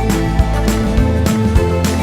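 Background music with a steady beat: regular drum hits over a bass line and held instrument notes.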